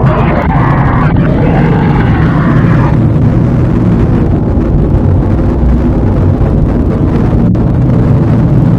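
Loud, low, heavily distorted rumbling drone from a horror creature sound effect, made to sound like radio interference. Some higher grinding noise fades out about three seconds in, leaving mostly the deep rumble.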